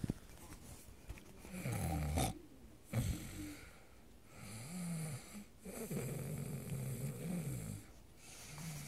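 Snoring-like noises from a person's throat and nose, in several irregular drawn-out stretches whose pitch wavers; the longest lasts about two seconds past the middle.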